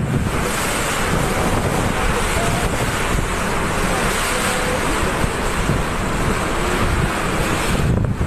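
Typhoon-force wind and driving rain blowing hard: a dense, loud rush that surges in gusts, with a few faint whistles that slide in pitch.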